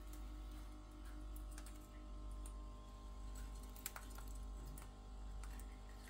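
Scattered light clicks and taps of a Pyrrhura conure's beak and claws on the wire cage bars, the sharpest about four seconds in, over a steady faint hum.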